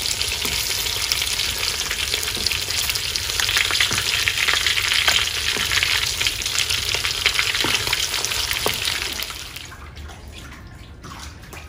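Pork belly pieces, skin and fat on, sizzling and crackling in hot oil in a wok while they are stirred and turned with chopsticks. Near the end the sizzling cuts off, leaving quieter sounds.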